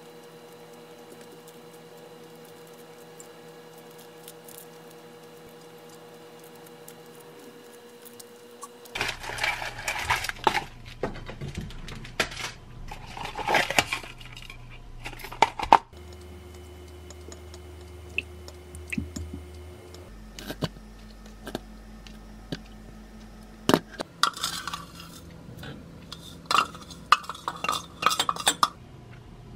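Kitchen handling sounds: dishes and utensils clattering and knocking on a counter and cutting board, loudest from about a third of the way in. Near the end, quick clinks of a metal spoon against a glass mug as a sauce is mixed. The first few seconds are quiet.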